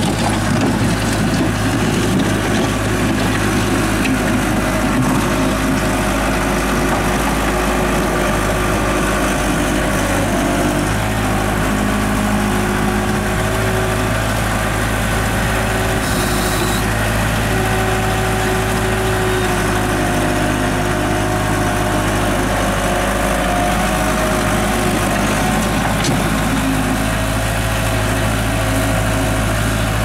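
Case 1845C skid steer loader's diesel engine running steadily under working load, its pitch shifting as the machine drives and digs with the bucket, with a brief hiss about sixteen seconds in.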